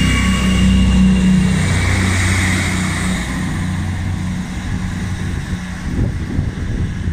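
ScotRail Class 158 diesel multiple unit pulling away and receding: a steady diesel engine hum with a thin high whine over it, fading over the first few seconds. Wind buffets the microphone near the end.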